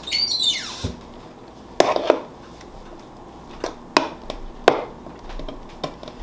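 A metal spoon scraping and tapping against a metal cake pan as thick batter is spooned in: a squeaky scrape that falls in pitch at the start, then a handful of scattered clicks and knocks.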